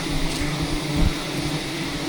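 Steady, droning hum of a swarm of wild honeybees in flight around a disturbed hive, with a low bump about halfway through.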